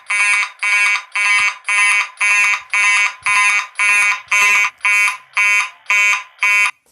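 Simplex 2903-9838 fire alarm horn sounding in a steady pulsing pattern, about two blasts a second, stopping near the end.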